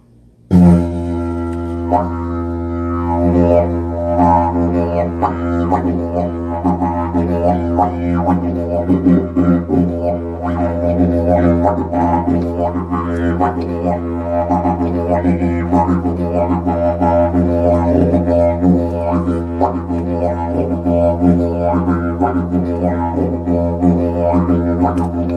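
Didgeridoo played with a steady low drone that starts abruptly about half a second in, its overtones sweeping up and down in a repeating, pulsing rhythm.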